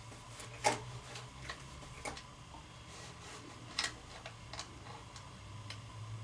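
Framed picture knocking and scraping against a wall as it is hung and straightened: several light, irregular knocks, the sharpest about two-thirds of a second in, over a faint low hum.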